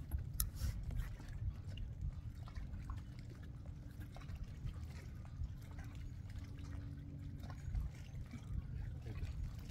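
Water lapping and trickling against a kayak's hull, under a steady low rumble, with a few faint clicks and one sharper click about half a second in.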